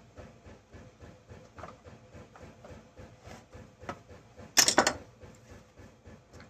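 Hands working on a chainsaw on a workbench: a brief, loud clatter of hard clicks about four and a half seconds in, over faint regular ticking.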